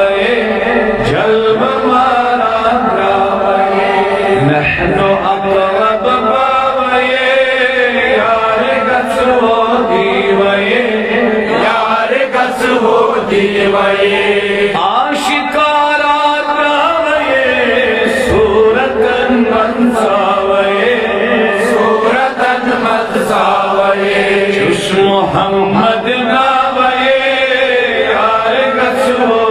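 A man reciting a naat, Islamic devotional poetry in praise of the Prophet, in a melodic solo chant with long phrases whose pitch glides and bends.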